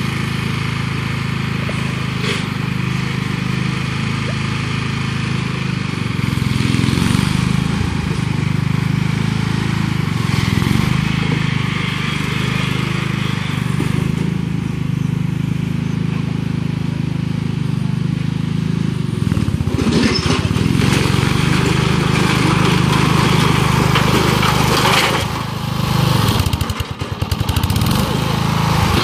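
Bolens G-14 lawn tractor's engine running steadily under load while it pushes an old metal grill with its front blade, with brief clatter about two-thirds of the way in.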